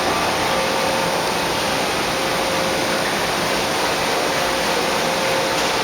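Fadal VMC5020A CNC vertical machining center running, a steady mechanical whir with faint steady whining tones as its axes are jogged.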